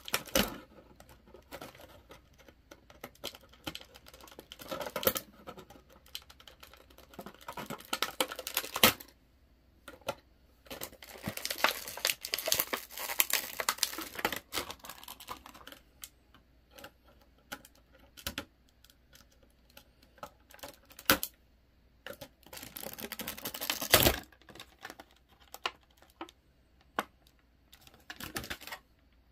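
Plastic toy parts and packaging handled by hand: irregular clicks and snaps, with stretches of crinkling and tearing, the loudest snaps near the start and about two-thirds of the way through.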